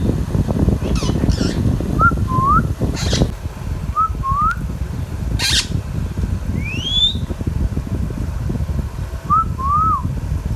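Pet Indian ringneck parrot whistling: short two-note whistled phrases repeated three times and a rising whistle, broken by a few short, harsh squawks, over steady low background noise.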